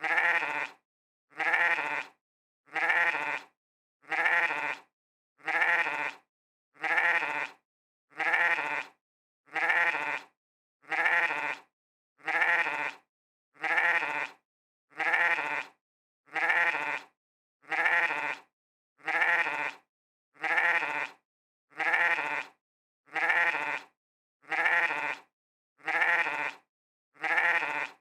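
A sheep's 'meh' bleat repeated over and over at even spacing, about every second and a half, each call just under a second long with silence between; every call looks the same, one bleat looped.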